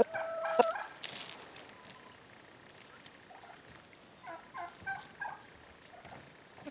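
Chickens making short, pitched calls, with a cluster right at the start and another about halfway through. A brief noisy crunch comes about a second in.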